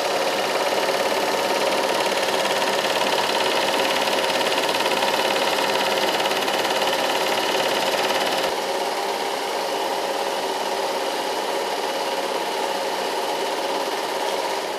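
Several Eumig super 8mm film projectors running together, a steady mechanical whirring clatter. About eight seconds in, the sound turns a little quieter and duller.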